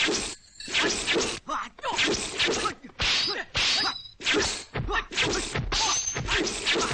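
Kung fu film fight soundtrack: a rapid run of punch and kick impact effects, two or three a second, with whooshes and the fighters' short shouts and grunts between blows.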